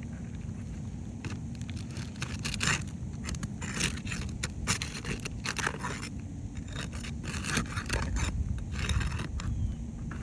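Roof shingles being scraped and pried during a shingle repair: a run of short, irregular scrapes and crackles.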